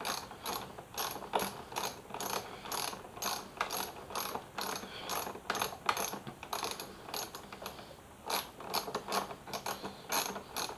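Ratchet socket wrench clicking steadily as a bolt is backed out, about three or four clicks a second.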